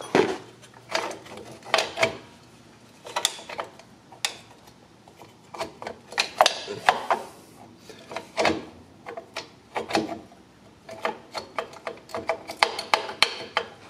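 Irregular metallic clicks and clanks as drum brake shoes and their spring hardware are handled and fitted onto the steel backing plate of a 2000 Jeep Wrangler TJ, coming in small clusters of taps.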